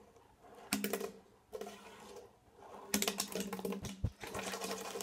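Tech Deck fingerboard clacking and rolling on a wooden tabletop: a couple of single clacks in the first two seconds, then a quick run of clatter through the last two seconds with a dull thump or two in it. A faint steady hum lies underneath.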